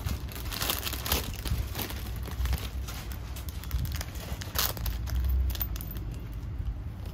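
Hands handling a jewellery combo set of choker, long necklace and earrings: irregular crinkling rustles and small clicks.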